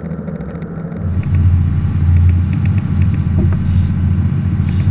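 Sportfishing boat's engines running steadily under way, a low rumbling hum that grows louder about a second in.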